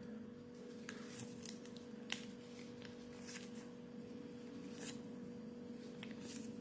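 Faint rustling and flicking of small paper bubble-gum wrapper inserts being leafed through by hand, with a sharper flick about two seconds in, over a steady low hum.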